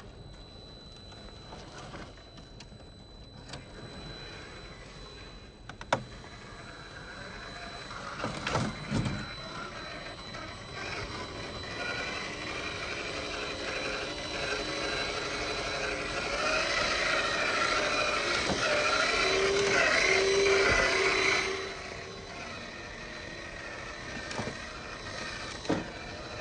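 Electric drive of a Traxxas TRX-4 Sport RC crawler whining as it crawls. The whine builds over several seconds and cuts off sharply about 21 seconds in. A few knocks come earlier, around 6 and 9 seconds, and near the end.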